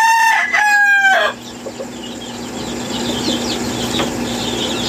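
A rooster crowing: one loud crow with a brief break about half a second in, ending just over a second in. Fainter high chirping from other fowl follows.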